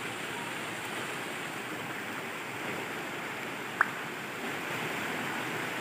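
Shallow stream water flowing steadily over stones, an even rushing, with one brief sharp click about four seconds in.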